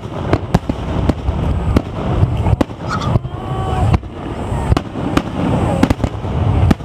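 Aerial fireworks shells bursting in quick succession: a dozen or so sharp bangs over a continuous low rumble of explosions echoing on one another.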